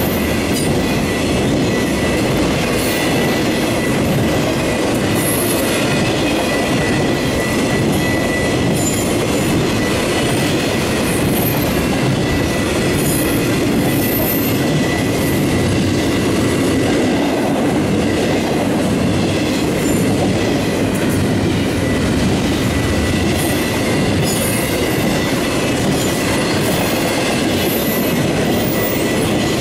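Intermodal freight train's container and trailer cars rolling past close by: a steady loud rumble and clatter of wheels on rail. A thin, high wheel squeal rides over it for roughly the first nine seconds, then fades.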